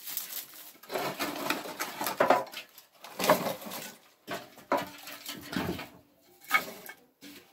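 Dry grass and brushwood kindling rustling as it is grabbed and pushed about by hand, in irregular bursts.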